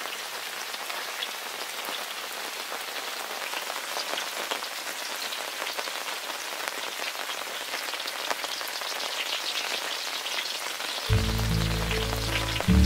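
Hot oil sizzling and crackling in a wok as spring onions fry, a steady hiss full of fine pops. Background music comes in near the end.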